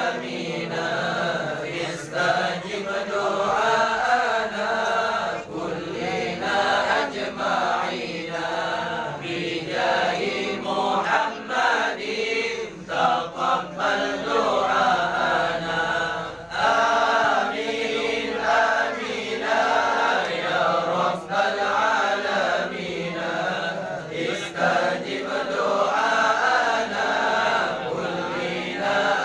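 A group of men chanting sholawat together in unison, a continuous devotional chant with short breaths between phrases.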